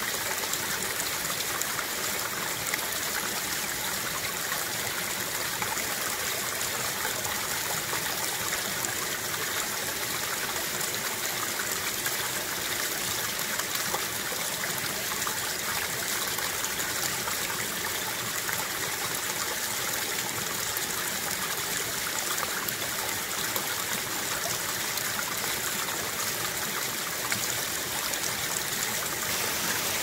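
Mountain stream water trickling and splashing down a rock face into a shallow pool, a steady even rush of water.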